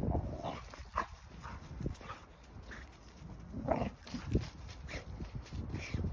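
Dog making short, irregular vocal noises while playing with a tennis ball, the loudest of them about four seconds in.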